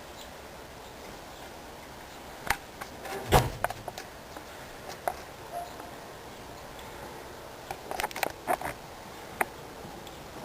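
Irregular sharp clicks and knocks over a steady faint hiss. The loudest comes about three and a half seconds in with a dull thump, and a quick cluster of clicks follows near the end.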